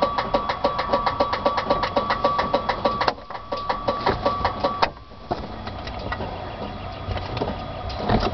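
The Jabiru 3300 six-cylinder air-cooled engine of a Thorp T-211 runs at low power, heard from the cockpit, with a regular pulsing beat of about eight pulses a second. About five seconds in, the beat stops and the sound turns into a steadier, somewhat quieter rumble.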